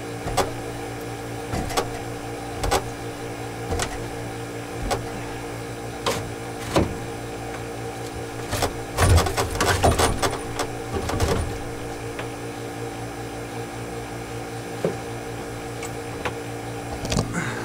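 Hammer striking a screwdriver wedged between a Westerbeke generator's back end and its engine block to pry the back end off: sharp metal knocks about once a second, with a quicker run of blows near the middle. A steady machinery hum runs underneath.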